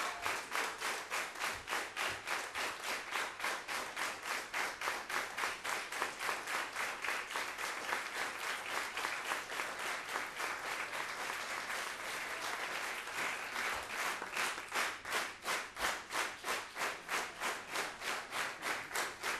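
Crowd clapping in unison: steady rhythmic applause at about three claps a second, an ovation.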